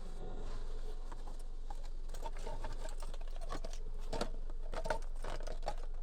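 Light handling sounds: a run of irregular small clicks and soft scratchy rustles, busiest in the second half.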